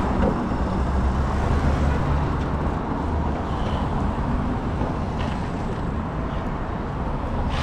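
Steady city street traffic noise: motor vehicles running along a busy road in a continuous rush.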